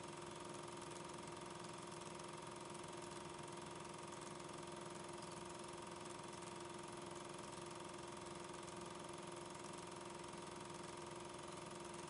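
Steady hum and hiss with a couple of fixed tones and no train sounds in it: the background noise of a silent Super 8 film transfer.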